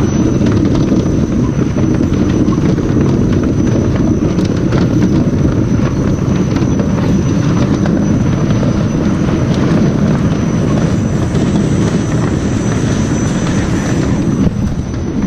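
Heavy diesel truck engine running steadily: a loud, even rumble with a thin high whine over it, cut off abruptly at the end.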